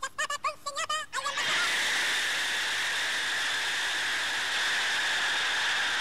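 A man shouting a speech in short declaimed phrases. About a second and a half in, a huge crowd takes over, cheering steadily, heard through an old newsreel recording.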